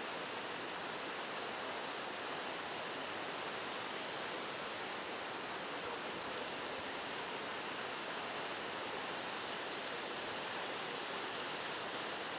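Steady rushing water: an even hiss with no rhythm or pitch.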